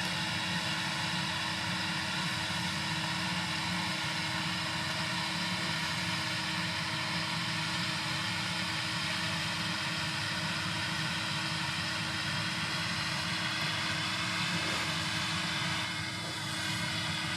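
Gleaner S77 combine running steadily while harvesting wheat: a constant machine hum with several steady tones in it. It dips briefly near the end.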